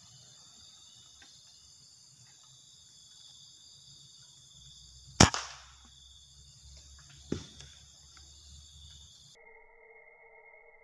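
Air rifle firing: one sharp crack about five seconds in, then a second, fainter crack about two seconds later, over a steady high hiss of insects.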